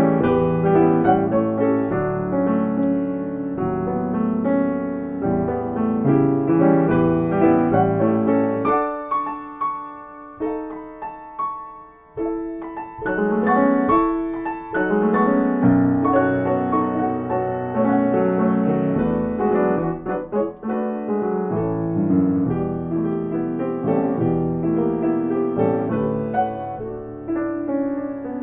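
Solo piano playing a slow, lyrical piece, with a softer, sparser passage about a third of the way through before the fuller chords return.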